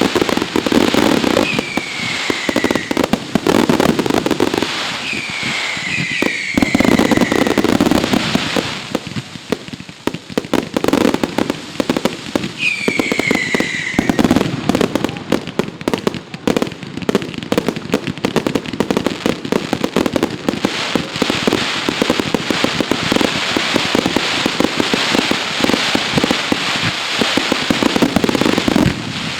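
Fireworks display: a dense, loud run of bangs and crackling. A few shrill whistles fall in pitch near the start and again around twelve seconds in.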